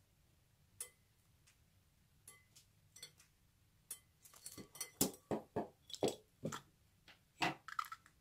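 Small scissors snipping into a rubbery squeeze-chicken stress toy over a glass bowl: scattered sharp clicks and clinks, a few at first, then thicker and louder from about halfway through.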